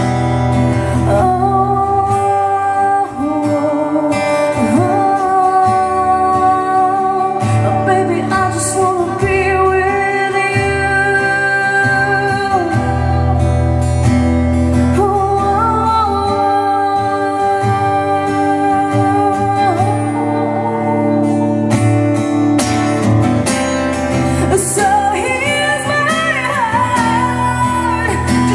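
A woman singing a ballad live, accompanying herself on a strummed acoustic guitar. Her voice climbs to higher notes near the end.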